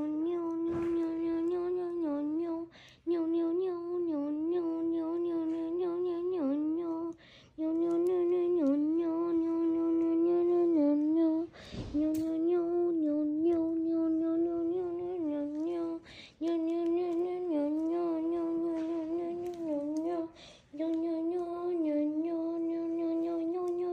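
A person humming one held note on a near-monotone drone, the pitch wobbling and dipping slightly. It stops briefly about every four seconds for a breath, then picks up again on the same note.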